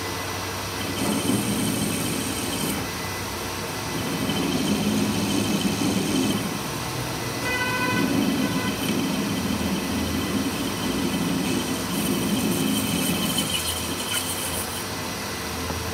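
Metal lathe running with a cutting tool turning the end of a steel shaft, chips curling off: a steady machine drone that swells and eases every few seconds, with a brief higher ringing tone about eight seconds in.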